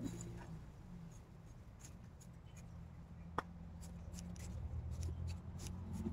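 Faint scratching and light crackling as a small stick is poked and worked into dry potting mix in a plastic pot, with one sharper click about three and a half seconds in, over a low steady rumble.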